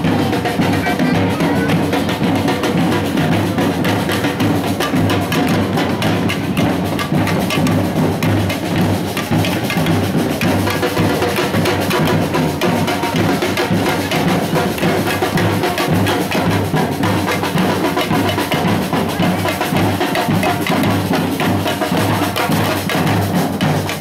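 Marching carnival drum band playing a driving, continuous rhythm on large metal-shelled bass drums and snare drums.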